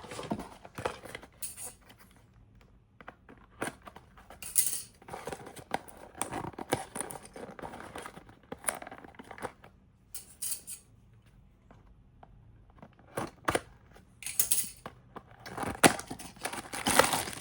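A small cardboard blind box being torn open and its contents handled: irregular bursts of paper and packaging crinkling, with sharp light clicks and taps and quieter gaps between them.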